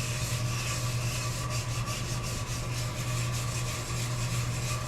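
Brass wire brush scrubbing a cast iron lathe slide wet with an automatic transmission fluid and acetone mix, in repeated rasping strokes. A ventilation fan hums steadily underneath.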